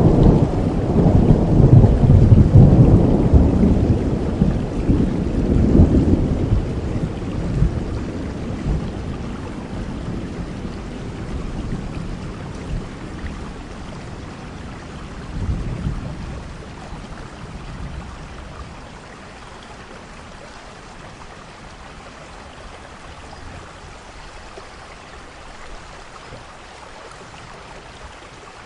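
Thunder rolling in a thunderstorm, loudest in the first six seconds, then rumbling away over the next ten or so with a brief further rumble about fifteen seconds in. Steady rain falls throughout and carries on alone near the end.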